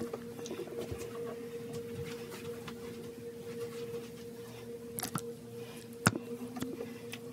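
Faint rustling and handling noise as hair is tousled by hand and the camera is held, over a steady hum. A few sharp clicks near the end, the loudest about six seconds in.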